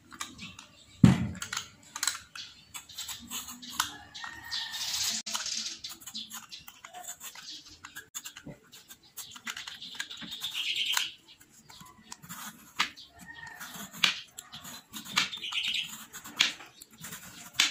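Potato being peeled with a metal vegetable peeler: repeated scraping strokes of the blade over the skin, with scattered clicks and knocks of the peeler and potato on a wooden cutting board, and a sharp knock about a second in.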